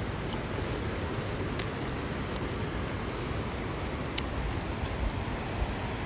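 Steady rushing of a mountain river, with a couple of light clicks.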